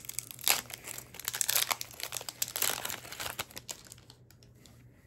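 Trading-card booster pack wrapper crinkling and tearing as it is opened, in a quick run of irregular crackles that dies away after about four seconds.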